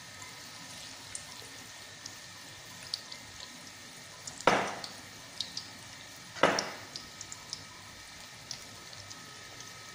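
Onion bhajis frying in hot oil in a steel kadhai: a steady low sizzle with scattered small pops and crackles. Two sudden louder bursts that fade quickly come a little over four seconds in and again about two seconds later.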